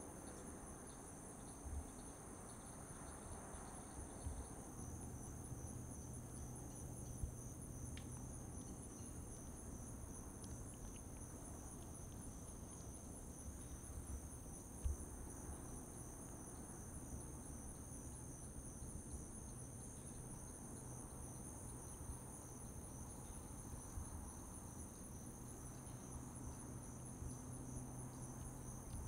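Steady chorus of insects trilling at two high pitches, with a low steady hum beneath and a few faint short knocks, the sharpest about fifteen seconds in.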